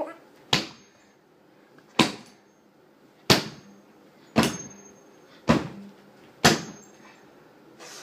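Hammer striking a small metal diary lock in a series of sharp blows, about one a second, some leaving a brief high metallic ring. The lock is not giving way.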